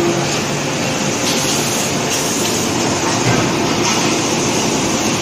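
Forging-shop machinery running: a loud, steady mechanical din with no single press stroke or hammer blow standing out.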